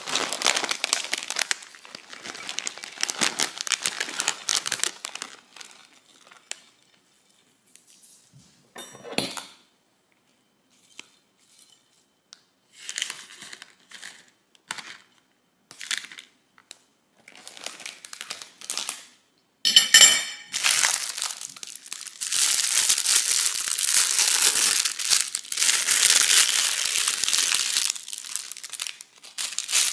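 Plastic salad-kit bags crinkling and rustling as chopped salad is shaken out onto a plate, in bursts with quiet pauses. About twenty seconds in comes a short rasping rip, followed by several seconds of loud, dense crinkling.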